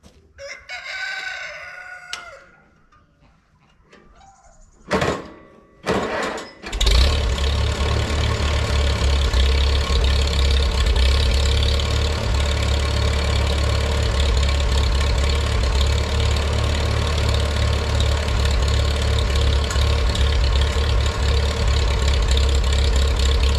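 A rooster crows about half a second in. Then a small vintage tractor's engine is started: two short bursts around five and six seconds in, then it catches and runs steadily at idle.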